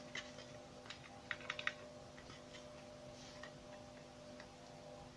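Faint clicks and taps of fingers handling a clear plastic shaker dome and its card frame, with a quick run of four or five clicks about a second and a half in, over a faint steady hum.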